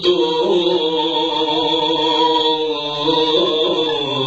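A man chanting a Balti poem in a slow, melodic voice into a microphone. He holds one long, slightly wavering phrase that breaks off near the end.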